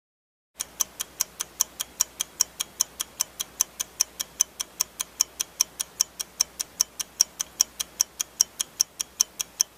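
Clock-ticking countdown timer sound effect: sharp, even ticks at about five a second, starting about half a second in.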